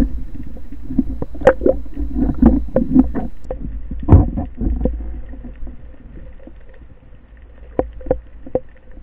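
Sound heard underwater: a low rumble of moving water with many sharp clicks and knocks from gear being handled, dense for the first half, dying down after about five seconds, with a few more knocks near the end.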